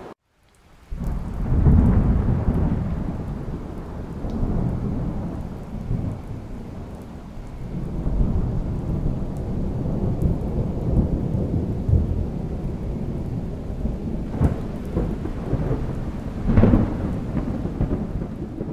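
Thunderstorm: thunder rumbling over steady rain. It starts about a second in and swells loudest soon after, and two sharper claps come in the last few seconds.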